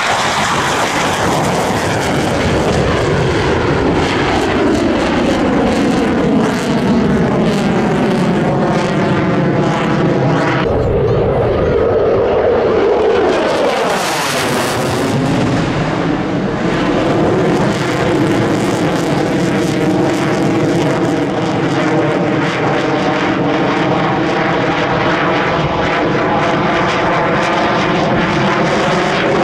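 Chengdu J-10 jet fighters flying past in a display, their jet engines making a loud continuous noise with a whooshing pitch sweep as each pass goes by. There is an abrupt change about ten seconds in and a sharp hiss from one close pass about halfway through.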